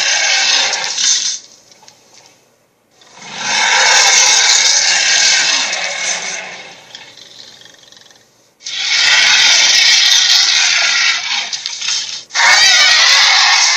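Harsh, raspy screeching sounds made as monster sound effects, in four long blasts: one ending about a second in, one fading out over several seconds from about three seconds in, one from about nine seconds in, and a last that starts just before the end.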